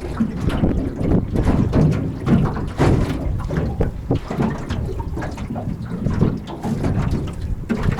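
Wind rumbling on the microphone, with water lapping and slapping against a small boat's hull in many short irregular splashes and knocks.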